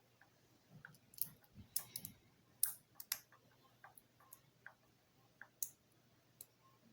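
Small plastic Lego pieces clicking faintly and irregularly as they are handled and pressed together, a dozen or so sharp clicks with short gaps between them.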